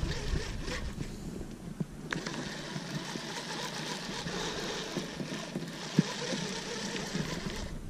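Baitcasting reel cranked steadily to retrieve a lure, giving a fine, even mechanical whir from its gears. It starts about two seconds in and stops just before the end, after a couple of handling clicks and low rumble on the microphone.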